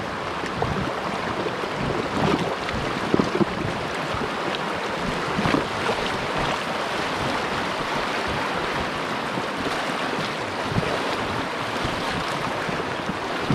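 River water rushing and splashing through a choppy riffle around an inflatable kayak, a steady hiss with a few brief louder splashes.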